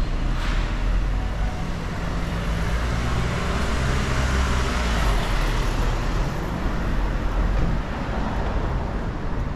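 Road traffic on a busy city street: vehicle engines running close by in a steady low hum, with the noise swelling as a vehicle passes about halfway through.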